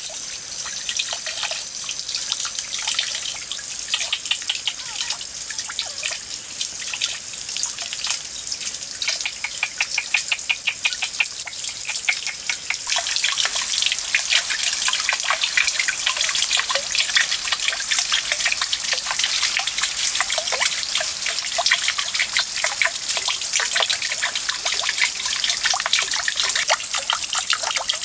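Water trickling and splashing steadily from a small clay fountain into a shallow pond, with a dense patter of fine drips. It grows a little louder about halfway through.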